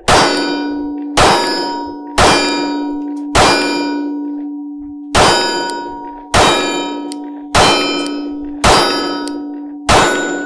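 Glock 43X 9mm pistol firing Wolf ammunition, nine shots spaced about a second apart. Each shot is followed by a long metallic ring, as from a struck steel target. The pistol fires every round without a malfunction.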